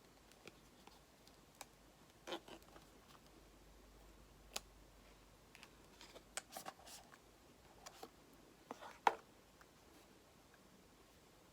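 A small cardboard box of Apple EarPods being opened and handled: scattered light clicks, taps and rustles of card and plastic, the sharpest one about nine seconds in.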